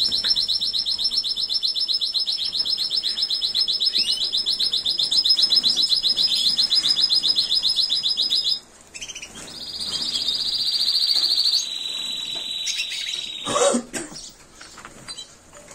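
Timbrado Español canary singing long, very fast rolled trills. One trill is held for about eight seconds; after a short break another runs for about four seconds. Near the end comes a brief thump.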